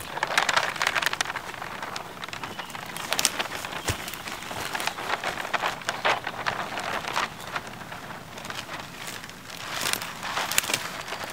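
A large sheet of printed paper rustling and crackling as it is unrolled off a roll and wrapped around a tree trunk: dense, irregular crinkling that swells and eases in waves.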